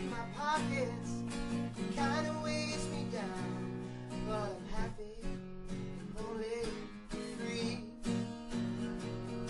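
Small band playing a song on acoustic guitars, strummed chords with a gliding melody line over them.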